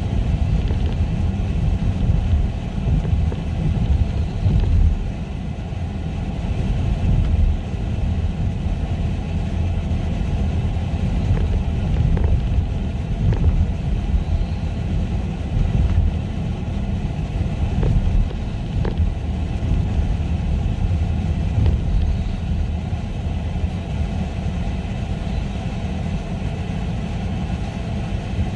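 Steady low rumble of a vehicle running, with a few faint ticks about halfway through.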